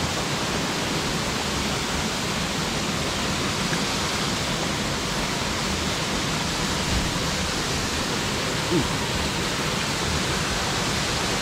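Hot-spring waterfall: a steady, even rush of falling water.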